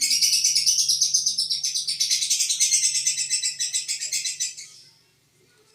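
Lovebird singing a long, fast chattering trill of about ten notes a second, which fades out about five seconds in.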